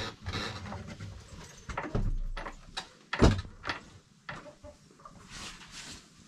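Goats moving about in a pen: irregular rustling and knocking, the loudest a single sharp knock a little over three seconds in.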